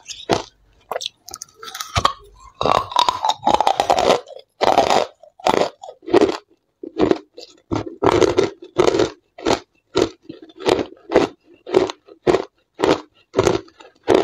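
Hard white crushed ice being bitten and chewed close to a clip-on microphone. After a denser, longer crunching in the first few seconds, the chewing settles into sharp crunches about twice a second.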